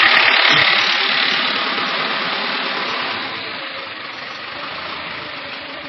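Steady, loud mechanical running noise with no clear pitch, fading steadily over a few seconds as it is left behind.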